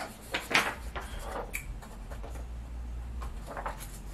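Short rustles and light knocks of things being handled at a table, including a sheet of paper, the sharpest about half a second in. Underneath runs a steady low rumble, which she takes for a loud car stereo outside.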